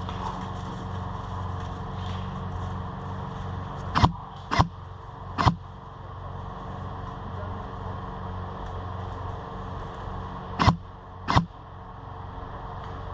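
Airsoft guns firing single shots: three sharp pops spread over about a second and a half, then two more about five seconds later, over a steady low hum.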